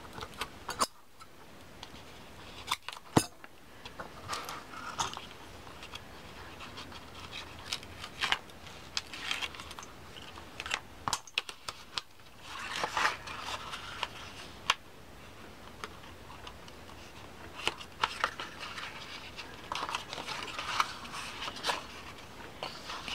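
Paper and card being handled, folded and pressed flat: intermittent rustling and crinkling with scattered light clicks, the sharpest about three seconds in.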